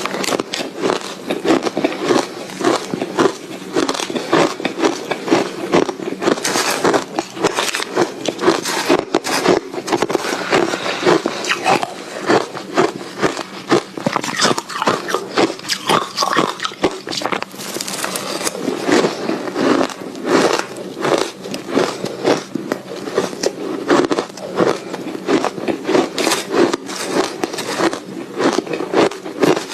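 Soft ice being bitten and chewed, a continuous run of crisp crunching and crackling.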